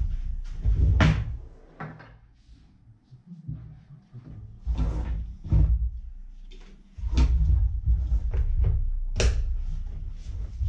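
Clicks and knocks of a scuba BCD's plastic buckles, clips and strap pieces being handled and set down on a wooden tabletop, over low thuds.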